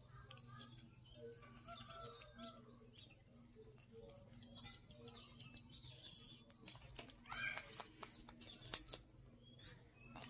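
Cats chewing and licking boiled chicken, with soft wet smacks and small clicks, over a steady low hum. Short bird-like chirps come and go in the background, and two louder sharp sounds come in the second half.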